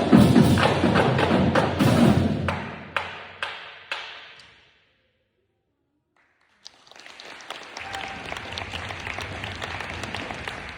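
A drumline playing loud, dense drum hits that thin out into a few last separate strokes and die away about four seconds in. After roughly two seconds of silence, a softer steady noise with scattered clicks comes in.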